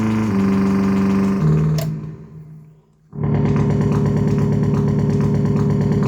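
Behringer MS-5 analog synthesizer playing a few held notes that step in pitch, then fading out about two seconds in. About three seconds in, a steady, fast, evenly pulsing tone starts: two narrow pulse waves through the ring modulator and band-pass filter, imitating a motorcycle engine ticking over.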